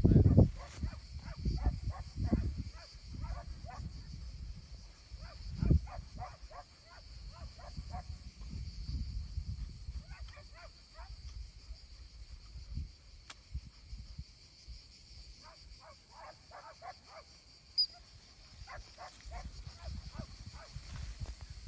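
Wind buffeting the microphone in gusts, strongest at the very start. Several runs of short, quick high chirps come through it.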